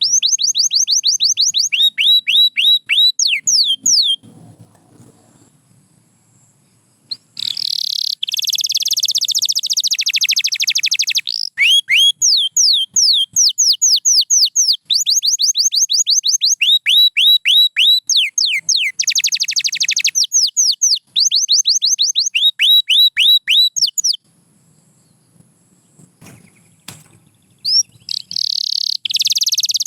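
Domestic canary singing: rapid trills of repeated down-slurred notes alternating with fast buzzy rolls, broken by two pauses of a few seconds, one a few seconds in and one near the end.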